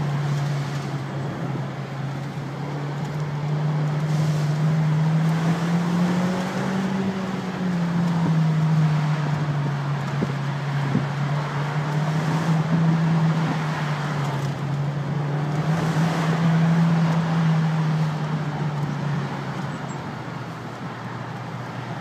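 Car engine droning steadily under road and tyre noise, heard from inside the cabin. The engine note rises slightly about six seconds in, drops back a couple of seconds later, and fades away near the end.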